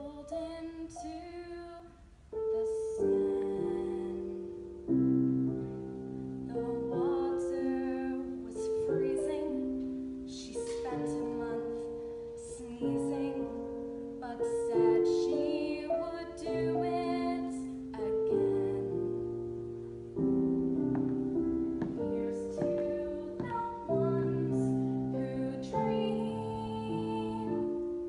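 Piano playing an introduction: chords and single notes struck one after another, each ringing and fading before the next.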